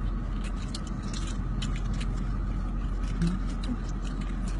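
Car on the move: a steady low rumble of engine and road noise, with scattered small clicks and rattles.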